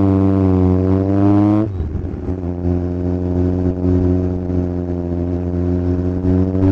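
Kawasaki Z1000's inline-four engine and exhaust under way: the note climbs for about a second and a half, drops abruptly, then holds a steady lower pitch and starts to rise again near the end.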